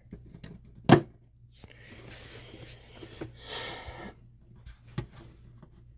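A light switch clicks sharply about a second in, followed by soft rustling movement and a fainter click near the end.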